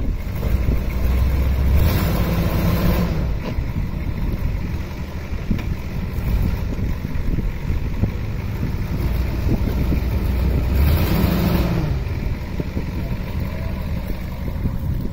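Ford F-250's 6.9-litre IDI diesel engine revving up twice under load, each time for two to three seconds, as the truck strains to climb out of a grassy ditch; the driver suspects the four-wheel drive isn't working. Wind noise on the microphone.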